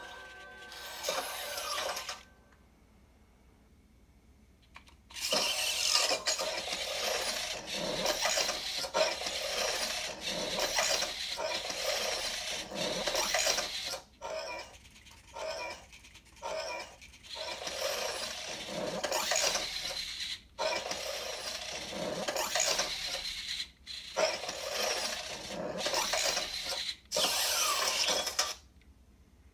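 Robosen Optimus Prime robot's servo motors whirring in a long series of short runs, with brief stops between them, as it swings its arms and shifts its pose.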